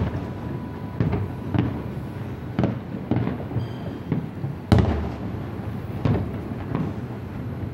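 Aerial fireworks shells bursting in a string of booms, roughly one a second, the loudest about five seconds in.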